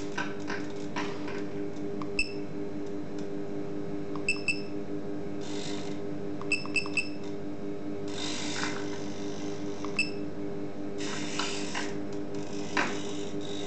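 Quadcopter electronics powered up on the bench: a steady electrical hum, a few short high electronic beeps, some in quick pairs and threes, and four brief bursts of buzzy whirring from the camera tilt-stabilisation servos as the mount moves.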